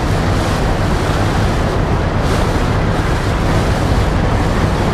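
Steady wind rumble on the microphone mixed with water and boat noise, heard from a boat out on the open water.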